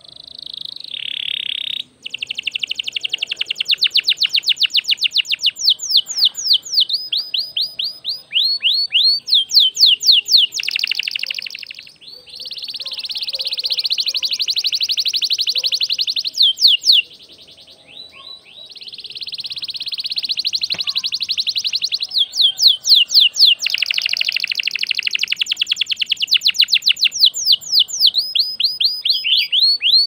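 Domestic canary singing in full, continuous song ('gacor'): rapid trills of fast, repeated down-slurred notes alternating with long rolling trills, broken by brief pauses about 2, 12 and 17 seconds in.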